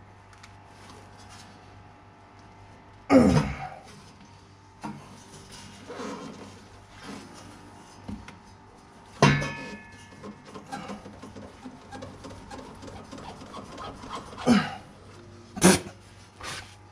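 Metal exhaust pipe knocking and scraping on a truck's underside: four loud knocks, one ringing briefly, with softer scrapes and taps between, as the stock rear exhaust section is worked loose. Faint music runs underneath.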